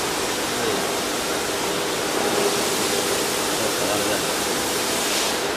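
Steady rushing background noise of a machine shop, even and unbroken, with a faint hum beneath it.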